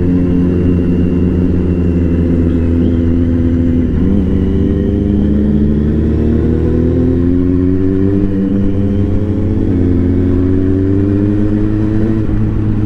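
Motorcycle engine heard from the rider's seat, running steadily under throttle on a winding road; its pitch dips briefly about four seconds in, then climbs slowly as the bike accelerates.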